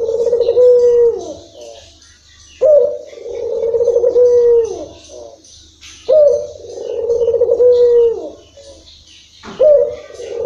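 Ringneck dove (local Indonesian 'puter', Barbary dove) cooing its long-rhythm call, repeated about every three and a half seconds. Each call opens with a sharp note, rolls on for about two seconds and ends in a falling note; a fourth call starts near the end.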